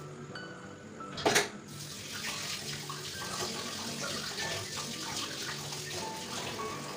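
A sharp knock about a second in, then a kitchen tap running water steadily.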